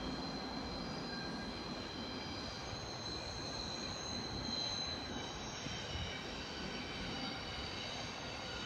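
Train wheels squealing on the rails as a train rolls slowly through the station tracks: several steady high-pitched tones over a low rolling rumble. The squeal swells about halfway through.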